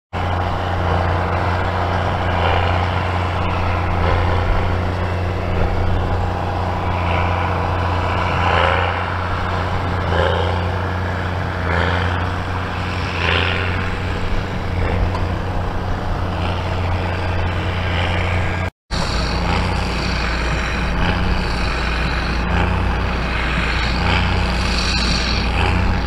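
New Holland T7040's six-cylinder diesel engine running steadily under load while pulling a large square baler, with the baler's regular strokes coming about every second and a half. The sound drops out for an instant about two-thirds through.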